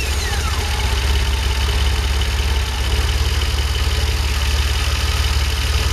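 DeLorean DMC-12's PRV V6, converted to a carburettor, idling steadily just after being started by jumping the starter solenoid's trigger wire in the engine bay. A falling whine fades out in the first half-second. The engine starting this way shows the starter motor and battery are fine.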